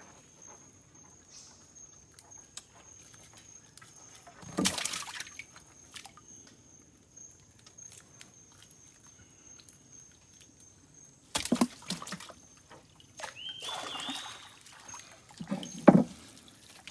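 Water splashing and sloshing around a small boat while a fishing net is checked. There are three louder splashes, about five, twelve and sixteen seconds in.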